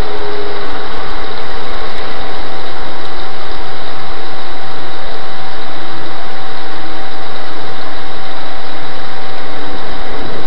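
Heavy thunderstorm rain and strong wind so loud that the recording is overloaded into a constant noise, with a steady tone running underneath.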